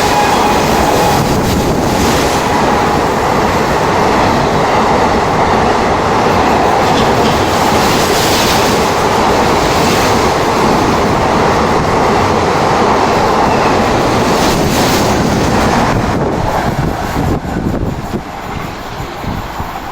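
Train passing close at high speed: a loud, steady rush of wheels and coaches with rail-joint clatter. A horn dies away in the first second, and the noise drops off about sixteen seconds in as the train clears.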